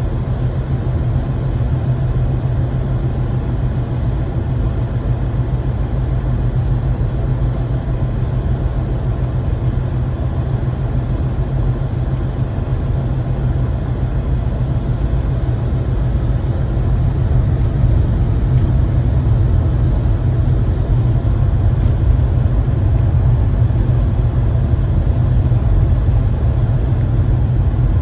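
Road and engine noise inside a moving car's cabin: a steady low rumble that gets a little louder about two-thirds of the way through.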